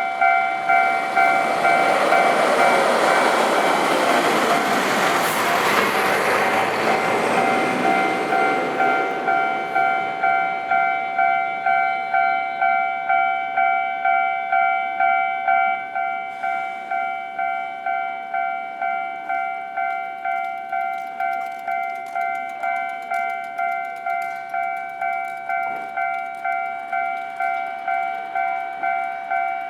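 Japanese railway level-crossing warning bell ringing in a steady clang about one and a half times a second, while an electric train of the Kishigawa Line passes over the crossing in the first ten seconds, loudest around five seconds in, then fades away. The bell keeps ringing after the train has gone, a little quieter from about sixteen seconds in.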